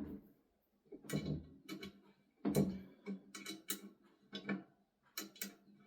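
Ratchet wrench clicking in short strokes as a bolt on the grinder chop-saw rig is tightened down: a dozen or so sharp metallic clicks in irregular clusters.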